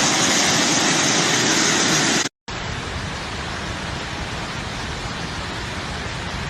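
Rushing floodwater: a loud, steady rush of noise that cuts off about two seconds in, then after a brief gap goes on slightly quieter and stops abruptly.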